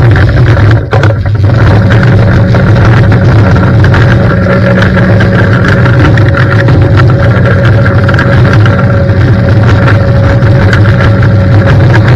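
Pressure washer running steadily, driving a 20-inch Whirl-A-Way rotary surface cleaner over wet block paving: a loud, steady engine-like drone with the rush of the spray jets under the cleaner's housing. The sound dips briefly about a second in.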